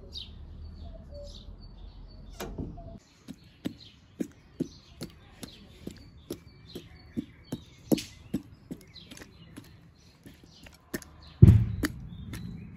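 Birds chirping, with a run of short sharp knocks or taps, about two to three a second, and a heavier thud about eleven and a half seconds in.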